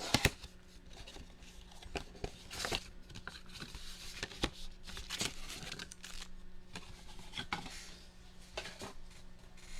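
Trading-card packaging being handled and torn open: crinkling and tearing of wrapper and cardboard, with scattered sharp clicks and scrapes, the loudest at the very start.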